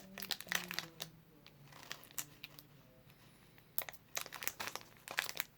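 Pokémon booster pack wrapper crinkling and crackling in the hands as it is worked at to tear it open, in scattered sharp crackles.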